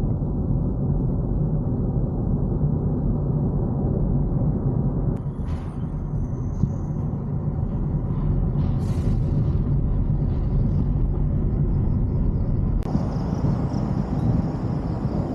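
A loud, steady low rumble throughout, with no clear tone or rhythm; about 13 s in, a steady high-pitched hiss suddenly joins it.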